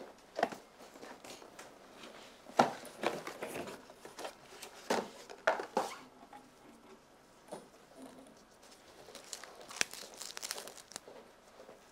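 Scattered knocks, clicks and rustling of kitchen items being handled, including a tray of frozen Ferrero Rocher-style chocolate balls being carried and set down.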